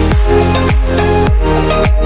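Background electronic music with sustained chords over a steady kick drum, a little under two beats a second.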